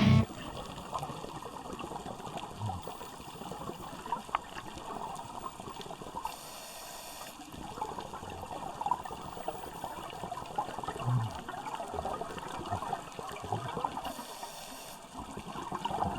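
Underwater sound picked up by a diving camera: steady water noise with light crackling. A diver's breath hisses through a scuba regulator twice, about six and fourteen seconds in.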